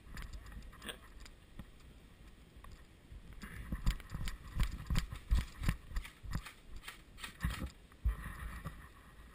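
Footsteps of a person running across grass: irregular soft thuds, loudest and quickest from about three seconds in until about eight seconds in.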